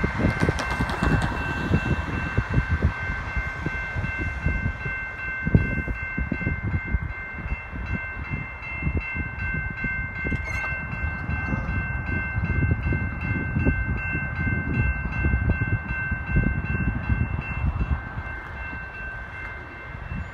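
Railway level-crossing warning bell starting up and ringing continuously as the crossing signals activate, over a low rumble of wind on the microphone.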